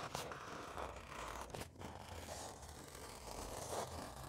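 Pencil scratching as it traces along the edge of a paper template onto XPS foam insulation board.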